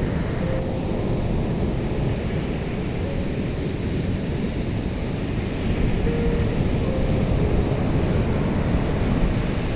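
Ocean surf breaking on a shore: a steady wash of noise that swells a little louder about six seconds in.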